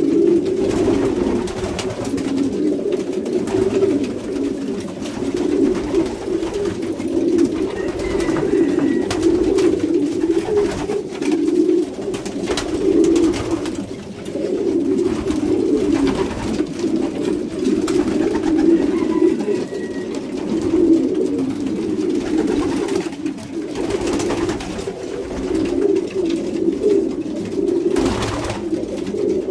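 A loft full of racing pigeons cooing together in a continuous, overlapping murmur: the courtship cooing of birds at pairing time. There are occasional wing flaps, with a louder flurry of wingbeats near the end.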